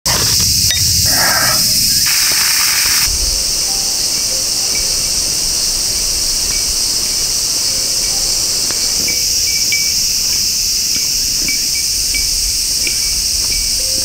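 Cicadas droning in a steady, high-pitched, continuous buzz, with a harsher hiss over it for the first three seconds.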